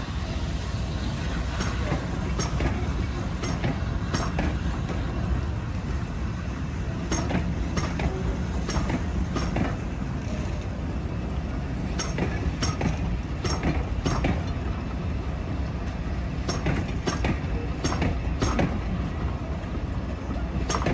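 Train rolling by with a steady rumble, its wheels clicking over the rail joints in repeated pairs and groups.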